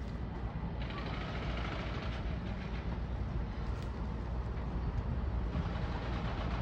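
JR East E131 series 500-subseries electric train approaching along the curve into the station, heard as a steady low rumble of the train on the rails.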